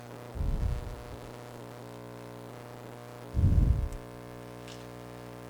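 Steady low electrical hum, with two dull low thumps about half a second in and again at about three and a half seconds, the second one louder.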